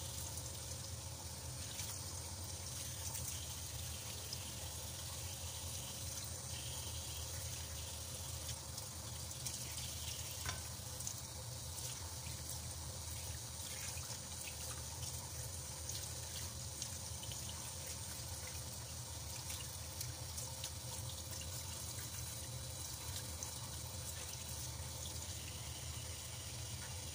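Tap water running steadily into a stainless steel sink, with small splashes and faint clicks as hands rub and rinse a soaked sea cucumber under the stream.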